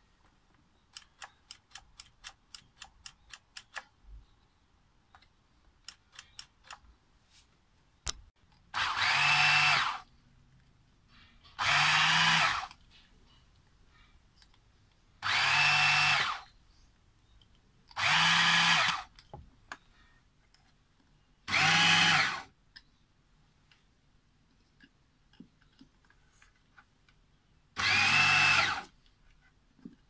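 Raymarine ST1000/ST2000 tillerpilot's electric drive motor and gearbox running the ram along its lead screw in six short runs of about a second each, a whine that rises as each run starts and drops as it stops. Each run is stopped at the end of the ram's travel by the added limit microswitch. Light clicks come in the first few seconds.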